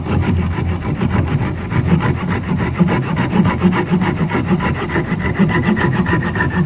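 Japanese pull saw cutting protruding wooden dowels flush with a bed frame, in quick, even back-and-forth strokes, several a second.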